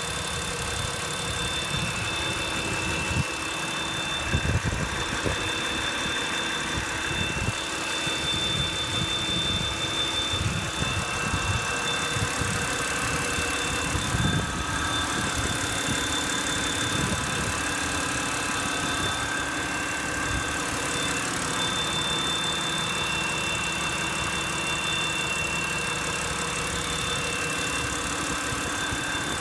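BMW N52B25 2.5-litre inline-six idling, with a steady high whistle of several tones sounding over the idle.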